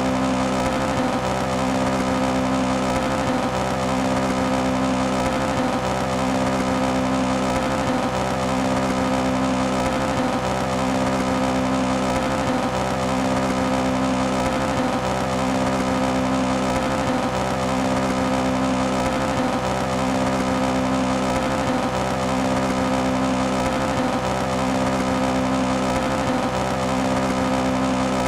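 Toyota AE86 engine held at a steady high rpm, its note unchanging in pitch but pulsing with a regular break about every two seconds, the sign of a misfire.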